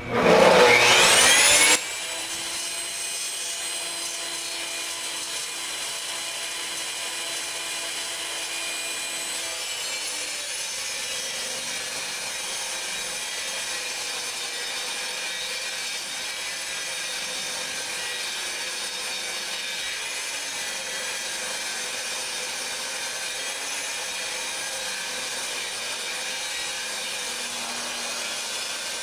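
Portable table saw ripping a wooden 2x4 lengthwise. Its motor spins up with a rising whine over the first two seconds, then runs steadily through the cut.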